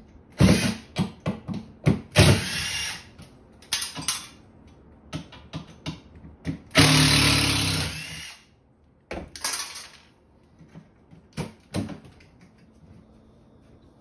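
Cordless drill running in a string of short bursts, with one longer run of about two seconds near the middle, as it backs out the screws holding an over-the-range microwave's wall mounting bracket.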